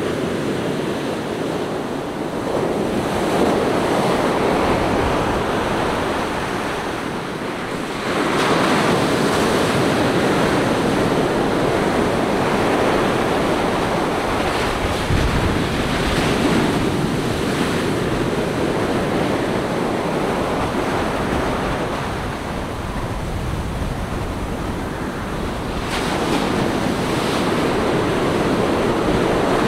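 Ocean surf breaking and washing up a sandy beach: a steady rushing wash that swells with each incoming wave, several times, and eases between them.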